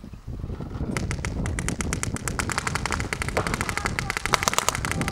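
Paintball markers firing rapid strings of shots, about ten a second, starting about a second in, over a low rumble.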